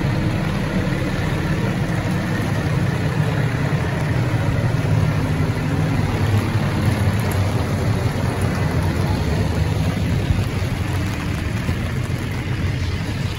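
Fire truck's diesel engine running steadily, a deep, even drone.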